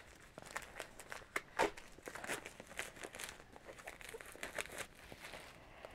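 Clear plastic shrink-wrap being pulled off a phone box by hand: irregular crinkling and crackling of the thin film, with a couple of sharper crackles in the first two seconds, growing fainter near the end.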